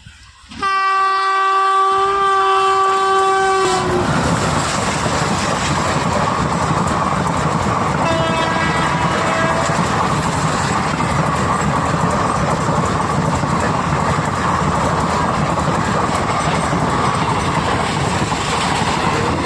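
Train horn sounding loudly for about three seconds, then the steady rumble and clatter of a train running past on the rails. A second, shorter and fainter horn blast comes about eight seconds in.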